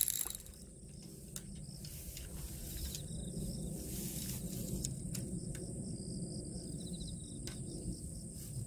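Insects trilling steadily at a high pitch over a low, steady outdoor rumble, with a few faint clicks.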